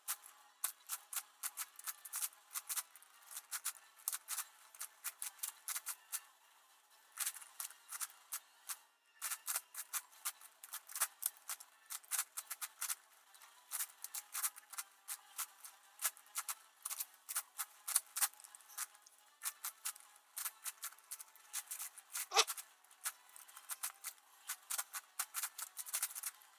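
Plastic layers of an 11x11x11 puzzle cube clicking and clacking in rapid runs as they are turned, with brief pauses; one louder knock about 22 seconds in.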